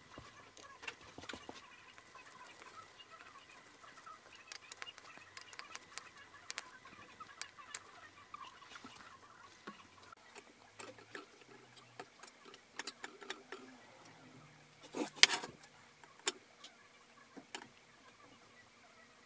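Light, irregular clicks and taps of small metal parts and hand tools being handled while a screwed-on cover plate is fitted over a service hole in an aluminium engine block, with a louder clatter of parts about fifteen seconds in.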